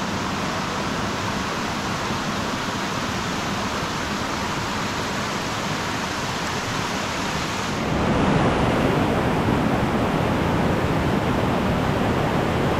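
Steady rush of a shallow river running over rocks and small cascades. About eight seconds in the water sound jumps louder and heavier, a nearer, fuller rush.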